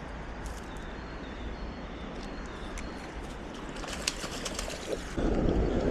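Birds calling over a steady outdoor background hiss. There are faint short high chirps and a brief flurry of sharper calls near the middle, and the background noise grows louder about five seconds in.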